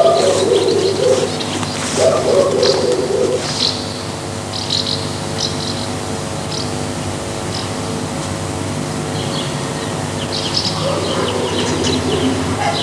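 Pigeons cooing in low phrases, at the start, about two seconds in and again near the end, with small birds chirping throughout over a steady hum.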